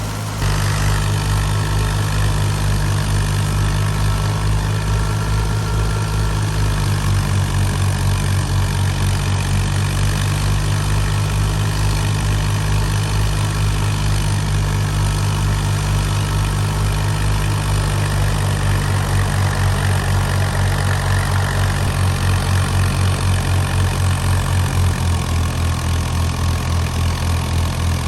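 Old Fiat 480 tractor's diesel engine running steadily with an even, low beat. It grows louder about half a second in, and its speed shifts slightly a few times.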